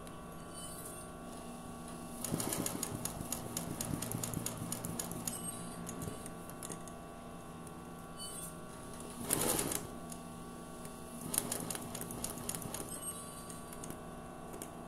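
Sewing machine stitching in free-motion embroidery, the needle running in bursts of rapid ticking: one about two seconds in, a short loud one just before ten seconds and another around eleven seconds, with a steady hum in the pauses.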